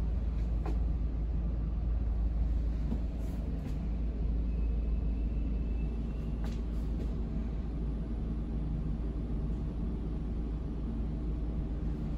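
Steady low hum and rumble of a CAF Urbos tram's onboard equipment, heard inside the standing tram, with a few faint clicks and knocks.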